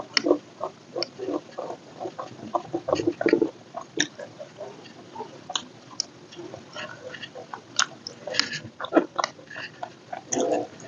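Close-miked eating: irregular chewing and biting, with short crunchy clicks from the mouth.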